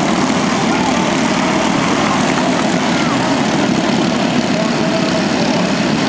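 Several small four-stroke racing kart engines running together, a steady drone with no let-up.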